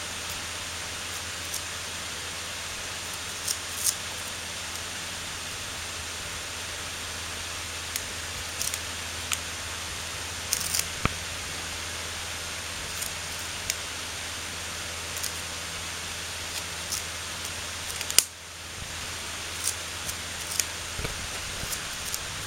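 Steady airy hiss with a low hum from a desk fan running, with scattered sharp ticks and crackles as a kitten's paws press on and pull off a strip of brown packing tape; the loudest is one sharp click about eighteen seconds in.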